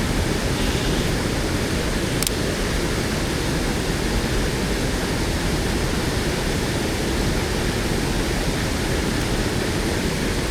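Mountain stream water rushing steadily, an even roar of flowing water.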